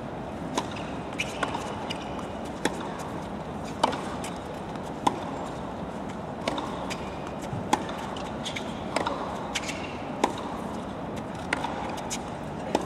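Tennis rally: repeated sharp pops of the racket hitting the ball, with the ball bouncing on the court between them, about one shot every second, over steady background noise.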